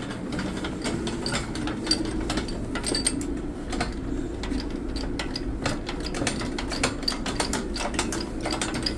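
Jacks being worked to push against 2x4s braced on a bowed cinder-block wall. A steady low hum runs under many irregular small mechanical clicks and ticks.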